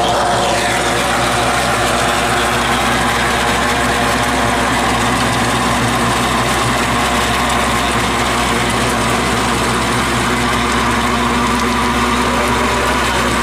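Tractor engine running steadily while driving a Gomadhi rotary weeder and bund former that churns the soil.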